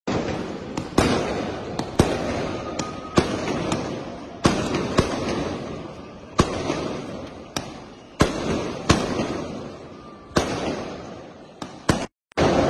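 Aerial fireworks bursting: sharp bangs about once a second, each fading away in a long echoing tail. The sound cuts out for a moment near the end.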